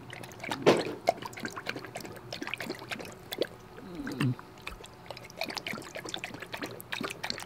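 English bulldog lapping water from a stainless steel bowl: a quick, uneven run of wet laps and splashes, drinking a lot after a run.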